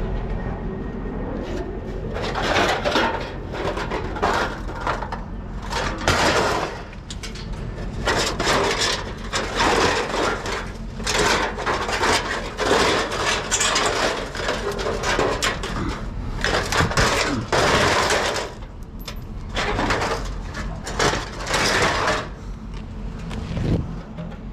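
Vehicle on the move with a steady engine and road hum underneath, over which a load of loose scrap metal rattles and clatters almost continuously, easing off near the end.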